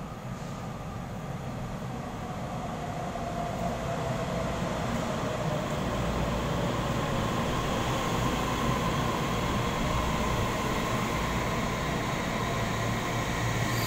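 Taiwan Railway EMU3000 electric multiple unit pulling into the station, its running noise growing steadily louder as the cars pass. A faint whine runs beneath the rumble and dips slightly in pitch as the train slows to stop.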